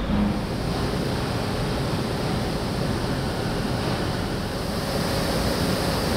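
Steady, even rushing noise with no distinct events or rhythm, like the background noise of a loud industrial site.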